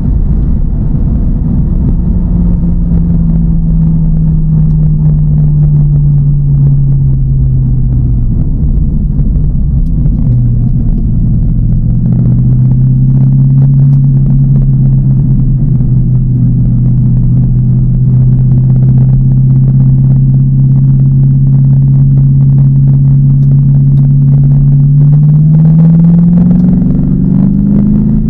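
TVR Chimaera's 4650cc V8, with race cam and pre-cats removed, running while driving over low road rumble. The engine note eases down and dips about ten seconds in, then climbs slowly and rises quickly near the end as the car accelerates.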